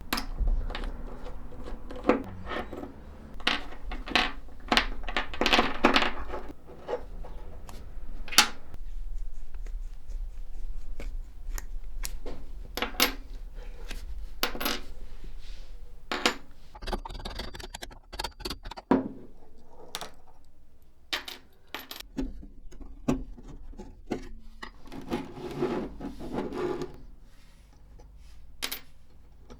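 Small metal parts of a Felix M mechanical calculator clinking and rattling as they are handled and set down, with many sharp clicks.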